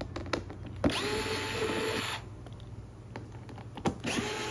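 Cordless electric screwdriver backing out the side-cover screws of an inverter generator: two short runs of a little over a second each, each starting with a rising whine that then holds steady, with light clicks of the bit and screws between them.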